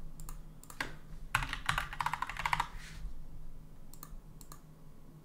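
Typing on a computer keyboard: a fast run of keystrokes for the first few seconds, then a few single clicks near the end.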